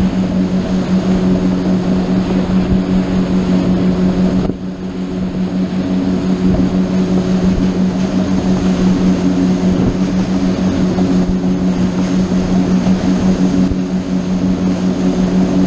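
Boat engine running at a steady pitch underway, with a brief dip in level about four and a half seconds in.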